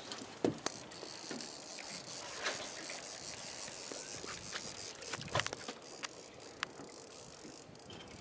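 Fishing reel clicking and whirring in irregular runs while a hooked fish is worked on a heavily bent boat rod.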